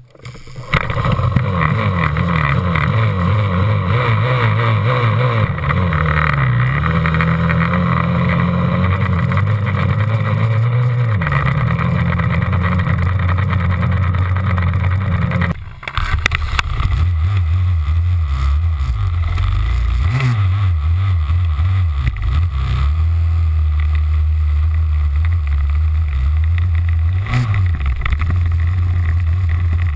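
Yamaha YZ250F dirt bike's 250 cc four-stroke single-cylinder engine running under throttle while riding, its pitch rising and falling with the throttle. About halfway through the sound cuts out for a moment, then the engine runs on.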